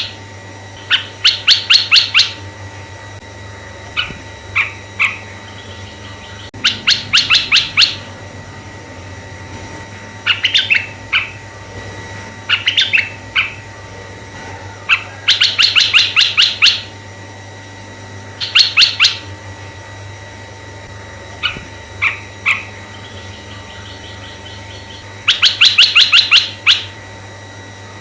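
Red-eyed bulbul calling: bursts of rapid, sharp chattering notes about a second long, repeated every few seconds, with shorter groups of two to four notes in between.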